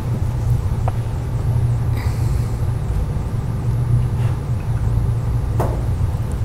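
Steady low rumbling hum of room background noise, with a couple of faint clicks, one about a second in and one near the end.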